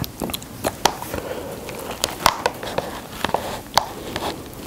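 Instant spicy stir-fried noodles being stirred and mixed with their sauce in a paper cup: irregular sticky, wet clicks and scrapes of the utensil against the noodles and the cup wall, several a second.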